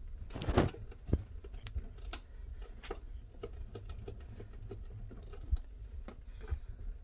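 A spray bottle squirting once about half a second in, a short hiss, followed by scattered light clicks and taps as a dishwasher is sprayed and wiped down.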